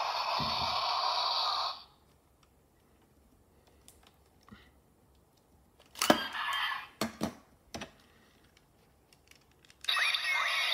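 Ultraman Trigger GUTS Sparklence toy playing electronic sound effects through its small speaker, cutting off about two seconds in. After a quiet stretch, sharp plastic clicks and rattling come as the toy is opened up and handled, and just before the end another burst of the toy's electronic sounds starts.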